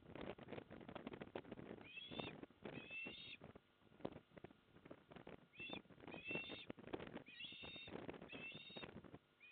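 Eastern osprey calling: a series of short, high, whistled calls coming in groups of two or three. Wind buffets the microphone throughout.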